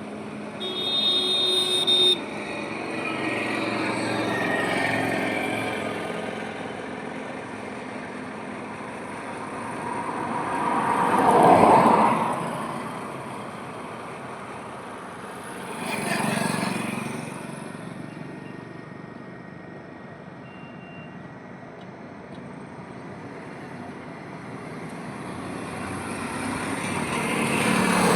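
Highway traffic, with vehicles passing one after another, each swelling and fading; a horn sounds for about a second and a half near the start and cuts off suddenly.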